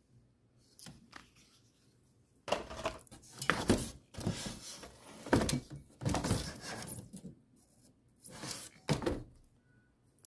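Glass wine bottles handled inside a cardboard shipping box with cardboard dividers: glass clinking and knocking against cardboard, in four bursts over several seconds.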